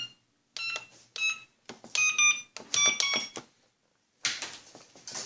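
Short electronic beeps from the remote-control helicopter set, about five of them, some stepping between two notes, as it is switched on. About four seconds in they give way to rustling as the parts are handled.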